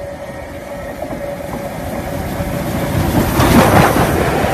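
Steam locomotive British India Line, a Merchant Navy class Pacific, approaching and passing close by at speed. The train noise builds steadily to a loud rush as the engine goes past about three and a half seconds in. A steady ringing tone runs underneath from the rails twanging.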